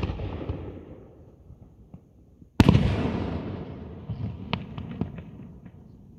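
Aerial fireworks bursting: a sharp boom, then a louder one about two and a half seconds later, each trailing off in a long rolling rumble. A quick scatter of small crackling pops follows the second boom.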